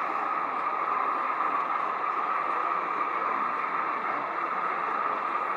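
Steady exhibition-hall background noise: an even hum with no clear voices.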